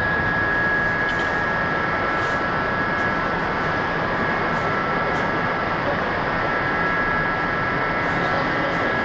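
Machinery running steadily in a workshop: an even noise with a constant high-pitched whine.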